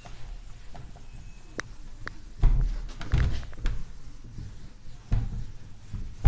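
Whiteboard being wiped clean with a cloth duster: rubbing, with several dull thumps and a few sharp clicks as the hand presses and sweeps across the board.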